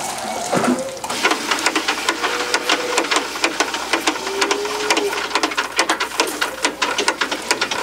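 A calf sucking milk from a rubber-teat feeding bottle: a quick, rhythmic run of wet sucking clicks, about five a second, with a couple of faint short squeaks.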